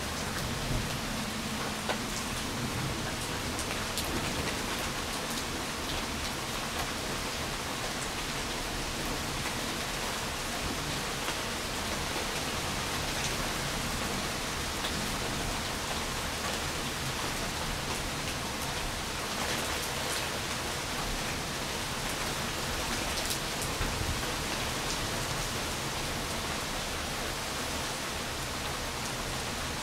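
Steady rain falling, with an occasional sharper drop ticking close by.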